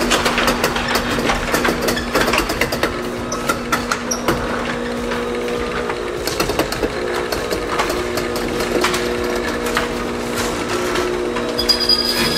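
Chamberlain RJO20 jackshaft garage door opener running through its first programming cycle, its motor giving a steady hum while the sectional door rattles and clicks as it is raised along its tracks.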